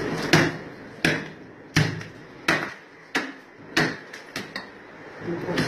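Butcher's cleaver chopping meat, six heavy strikes at a steady pace of about one and a half a second, followed by a couple of lighter taps.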